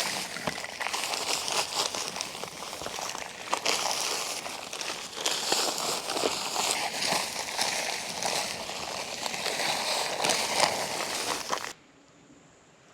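Quikrete fast-setting concrete mix being poured into a post hole: a steady rushing, crinkling noise full of small clicks and crackles. It stops suddenly near the end.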